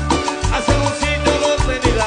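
Upbeat background music with a steady beat and a repeating bass line.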